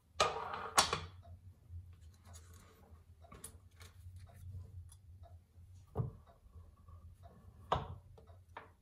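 Steel parts being set down and shifted on the cast-iron base of a small hand press and the workbench: a short scraping clatter at the start, then a few separate metal clinks, one about six seconds in leaving a brief ring.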